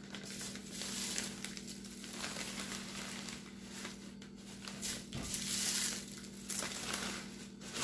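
Plastic zip-top bag crinkling as handfuls of dried, crispy spinach leaves are pushed into it, the brittle leaves rustling and crackling in irregular strokes. A faint steady hum runs underneath.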